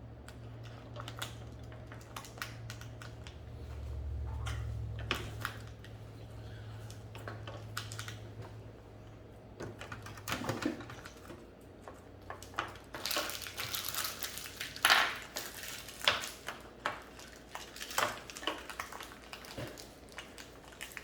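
Small hard plastic toy pieces being handled, giving irregular clicks and light rattles that grow busier and louder in the second half, over a low hum that stops about ten seconds in.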